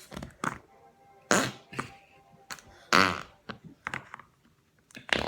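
Several fart sounds, short blasts with the two loudest about a second in and about three seconds in, the second a longer rattling one.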